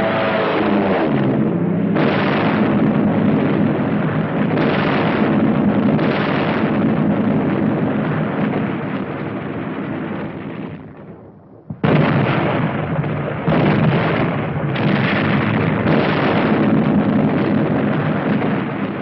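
Battle sound on an old film soundtrack: a continuous din of explosions and gunfire, with fresh blasts every second or two. It fades away about eleven seconds in, then comes back abruptly.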